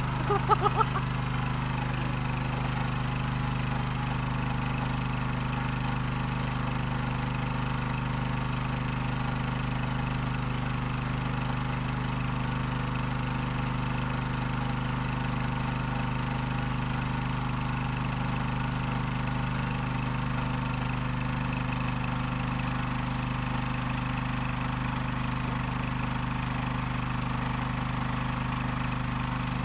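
Small Robin petrol engine running steadily at constant speed, powering a gold-and-sand separating machine.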